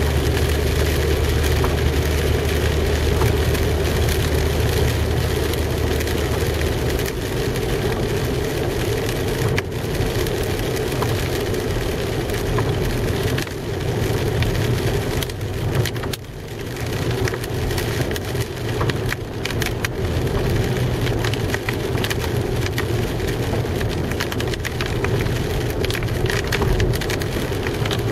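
Rain falling on a car, heard from inside the cabin, over a running car engine and tyres on a wet road. The steady low engine hum changes about seven seconds in as the car pulls away.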